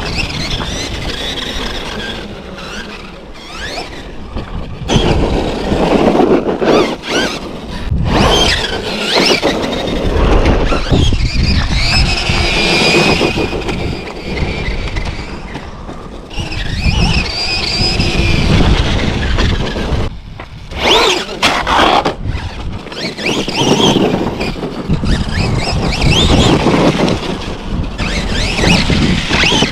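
Losi LMT 2.0 RC monster truck being driven hard: its motor and drivetrain whine in high, wavering squeals that rise and fall as it speeds up and slows down, with repeated surges of throttle.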